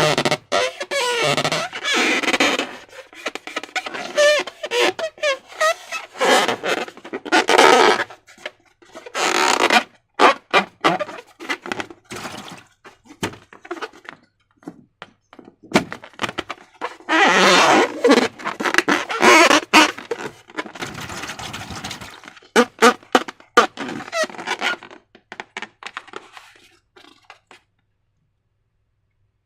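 Slime being squished and worked with transparent balloons: an irregular run of wet squelching bursts and sharp clicks, stopping shortly before the end.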